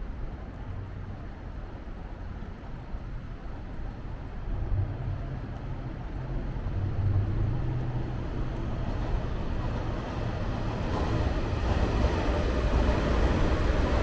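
Low rumble of street traffic that swells louder and fuller in the last few seconds as a vehicle draws close.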